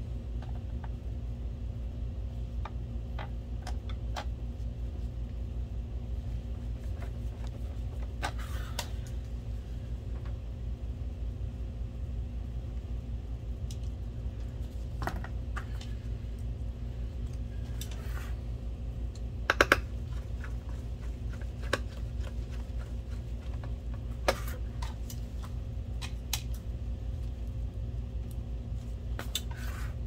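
Scattered small clicks and metal taps of screws and a hand screwdriver being worked into a projector's sheet-steel chassis, with a sharper cluster of clicks about twenty seconds in, over a steady low hum.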